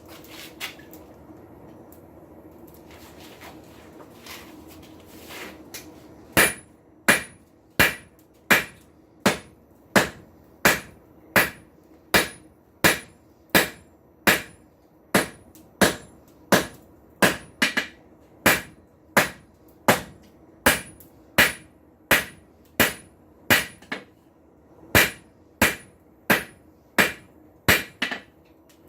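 Hand hammer striking hot steel on an anvil while forging a tong blank: steady, even blows at about one and a half a second, some with a short high ring from the anvil. They start about six seconds in, after a low steady hum, and pause briefly near the end.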